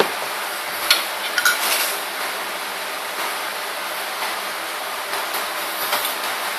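Steady hiss of room noise with a few light clinks of a metal fork against a dinner plate, about a second in and again around a second and a half.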